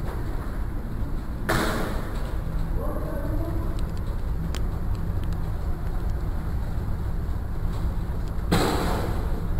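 Steady low wind rumble on a body-worn camera's microphone, with two short hissing bursts, one about a second and a half in and one near the end.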